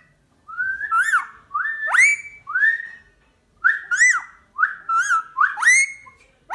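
Indian ringneck parrot whistling: about six short whistled phrases in a row, each sliding up and down in pitch, with brief pauses between them.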